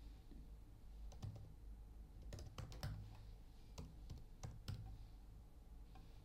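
Faint typing on a computer keyboard: about nine separate keystroke clicks over a few seconds, over a steady low hum.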